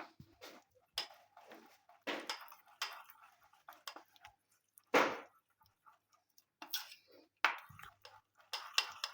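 A spoon stirring a thick mix of egg yolk, honey, turmeric and black pepper in a small bowl: irregular scrapes and taps against the bowl, with one louder knock about five seconds in.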